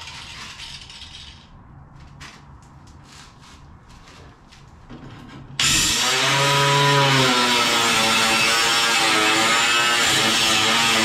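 Angle grinder with a thin cut-off wheel cutting steel bracket plate. The wheel dies away at first, then a quieter stretch holds a few faint taps. About halfway through it abruptly bites into the metal: a loud grinding hiss over a motor whine that wavers with the load.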